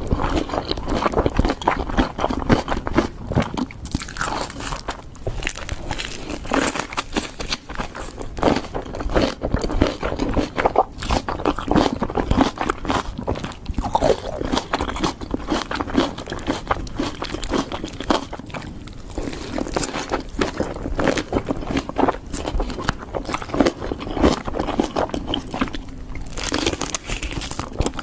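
Close-miked eating: a person biting into and chewing crunchy food, with dense, irregular crunches and mouth clicks throughout.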